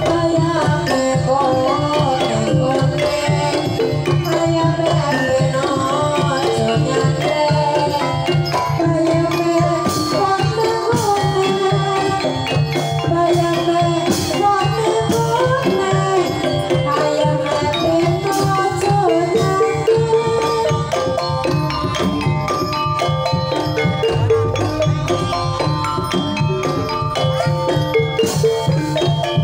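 Banyumasan gamelan music for tayub: a wooden xylophone struck with mallets, kendang drums and gongs, with a sinden's voice gliding over the ensemble.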